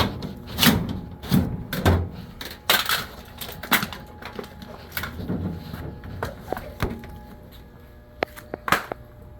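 Irregular knocks and thumps, several close together in the first few seconds and then only a few, over a faint steady hum.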